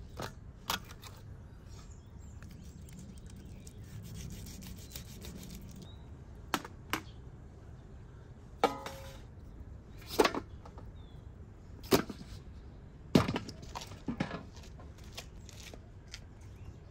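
Scattered sharp knocks and clatters, a few seconds apart, from a steel tray, wooden cutting board and knife being handled and moved, one knock ringing briefly like metal; a quiet steady outdoor background runs underneath.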